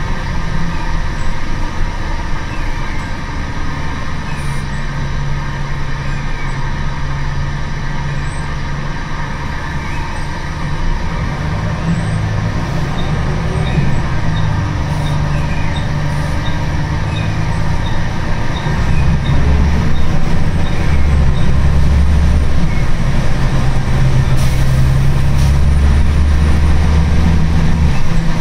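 Engine and running noise heard from inside a Wright Solar bus on a Scania chassis as it drives. The engine note shifts in pitch and grows louder about two-thirds of the way through. A light, regular ticking is heard for a few seconds near the middle.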